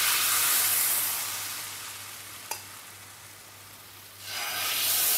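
Ragi dosa batter sizzling as it hits a hot nonstick tawa from a steel ladle. The sizzle fades, with a single click about two and a half seconds in, then swells again near the end as more batter is poured on.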